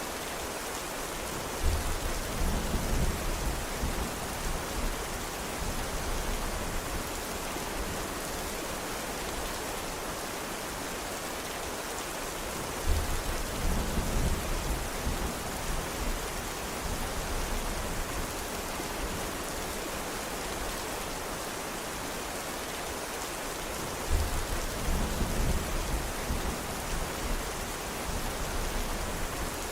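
Steady heavy rain hiss, with three low rumbles of thunder, each starting suddenly and fading over a few seconds, about eleven seconds apart.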